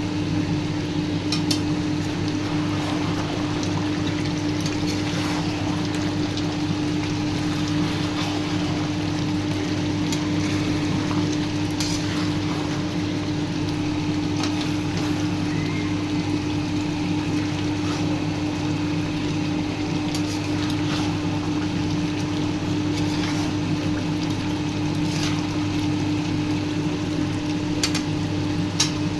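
A steady low hum with one constant tone, under a liquid-like bubbling sound and scattered sharp clicks, typical of food cooking in a pot.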